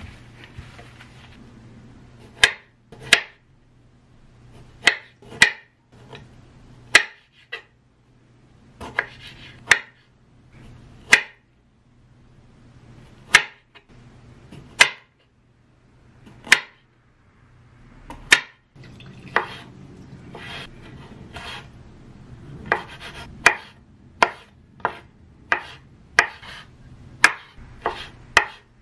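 Chef's knife cutting red plums on a wooden cutting board: sharp single knocks of the blade on the board every second or two as the plums are sliced into wedges, quickening to about two a second as the slices are diced near the end.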